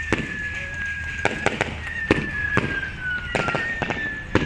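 Fireworks and firecrackers going off in a quick irregular run of sharp bangs. Under them, a thin high whistle holds, sinks slightly in pitch, and starts again every second and a half or so.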